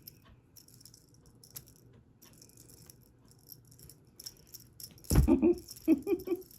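Cat toy rattling and jingling in short, intermittent shakes as it is played with. About five seconds in there is a loud thump, then a few short vocal sounds.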